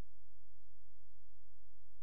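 Steady low electrical hum from the tape playback and capture chain, carrying no programme sound.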